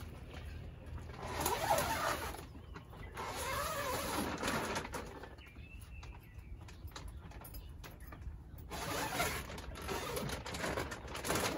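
Clear plastic sheeting of a garden hoop house rustling and crinkling in several bursts as it is handled and opened up, with a dove cooing in the background.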